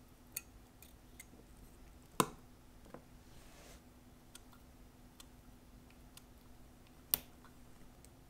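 Small, sharp clicks of metal watchmaking tools against the parts of a Seiko 6309 automatic movement in its holder: scattered faint ticks, with two louder clicks about two seconds in and about seven seconds in, over a faint steady hum.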